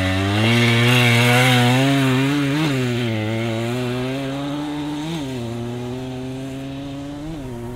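Suzuki JR80's small two-stroke single-cylinder engine pulling away and riding off. The pitch holds fairly steady with a short rise and drop three times, and the sound grows steadily fainter as the bike moves away.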